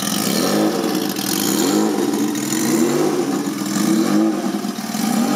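1982 Honda CBX's inline-six engine, modified with a turbo, running at idle; its pitch rises and falls in a regular rhythm about once a second.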